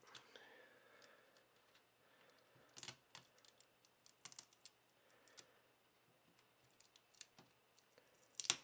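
Faint, scattered clicks and small taps of fingers and fingernails handling the open Nexus 7 tablet's insides while peeling back the black tape over the LCD connector, with one sharper click near the end.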